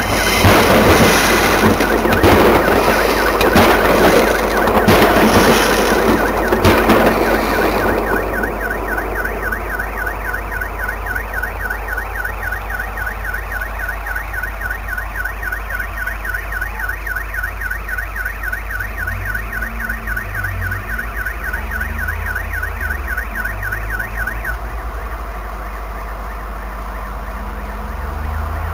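A firework exploding on the ground: a dense crackle of bangs for about the first eight seconds. Then a car alarm warbles fast, set off by the fireworks striking parked cars, and stops suddenly; a low rumble of passing traffic comes in near the end.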